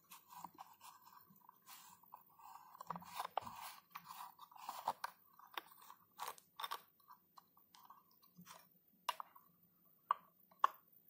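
Handheld shower head being unscrewed by hand from its hose's knurled metal nut: a faint, irregular run of crunching, scraping clicks from the threaded fittings, with two sharper clicks near the end.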